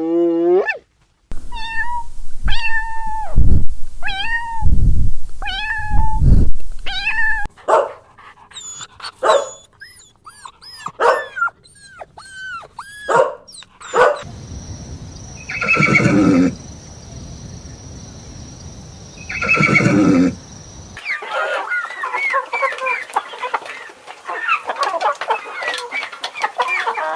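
A run of different animal calls, cut one after another. First come about five repeated meow-like calls, then scattered short calls, then two long loud calls a few seconds apart, and near the end a busy chorus of small chirping calls.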